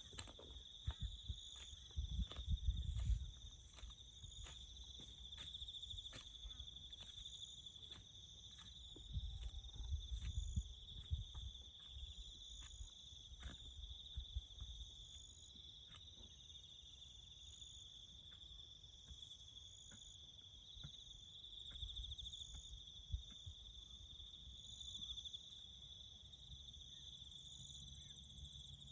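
Crickets chirping in a steady, continuous high trill, with higher pulsing chirps layered over it. Scattered clicks and a few low rumbling thumps come through, mostly in the first half.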